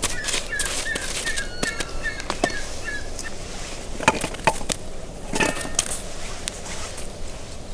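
Scattered light knocks and clicks of hands and utensils at work, with a small bird chirping a quick run of short notes during the first three seconds.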